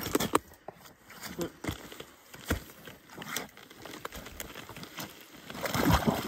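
Irregular crunching and knocking on snow and ice, about a dozen uneven strikes, with a louder crunching swell near the end.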